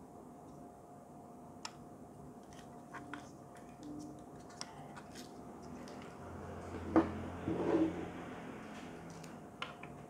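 Handling noise from a plastic audio recorder and handle grip being turned over in the hands: scattered light clicks and taps, with a sharper knock and about a second of rubbing about seven seconds in.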